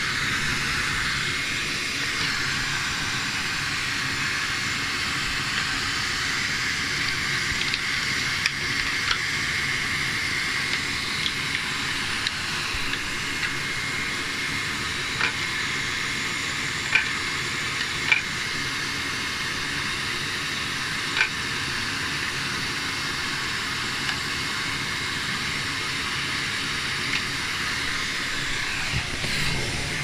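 Vacuum cleaner running steadily through a bare hose end held against a table, with a steady high whistle in the suction. A few sharp clicks are scattered through it as small items are sucked into the hose.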